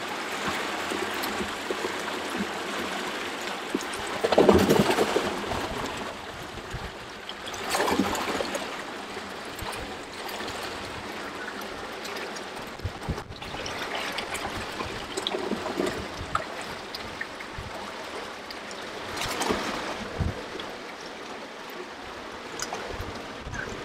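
Water spilling over a concrete weir into a hatchery holding channel: a steady rush of falling, gurgling water, with a few louder swells, the biggest about four seconds in.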